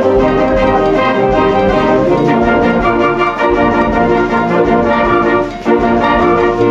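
Wind band of flutes, clarinets, saxophones, trumpets, French horns, tuba and trombones with drums, playing sustained chords together, with a short break about five and a half seconds in.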